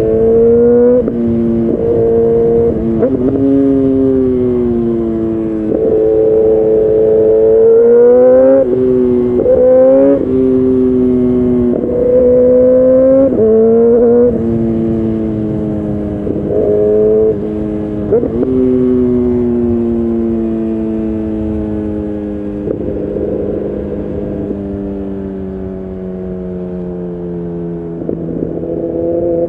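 2011 Kawasaki ZX-10R inline-four through a decat Leo Vince exhaust, the revs climbing and dropping again and again under hard riding. About two-thirds through, the revs sink slowly and steadily as the bike slows.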